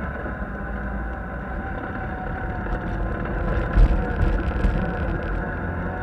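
Side-by-side UTV engine running at a steady drone while driving over a gravel trail, with tyre and stone noise underneath. About four seconds in there is a loud thump followed by a few knocks as the vehicle goes over bumps.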